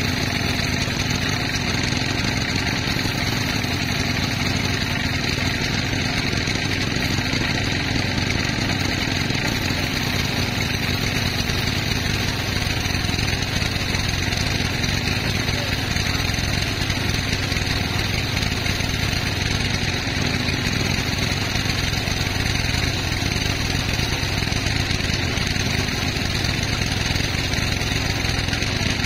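Sawmill machinery running with a steady, unbroken mechanical drone.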